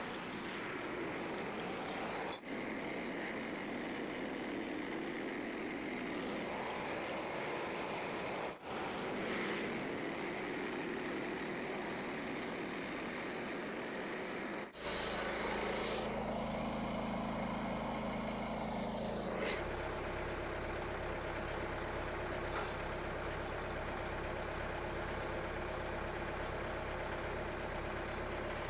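Engine running, broken by three brief dropouts in the first half, where the sound is a rougher, noisier run. From about halfway it becomes a steady engine hum that shifts pitch once, about twenty seconds in.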